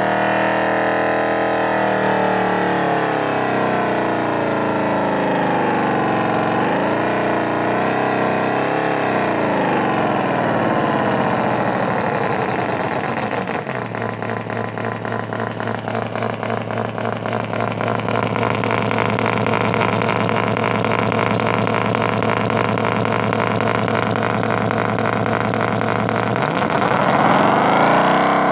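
Synthesized engine sound from a battery forklift's sound-effects circuit, played through a speaker. The engine note revs up and down, then settles to a steady idle with an even pulsing beat about halfway through. Near the end it revs up sharply again.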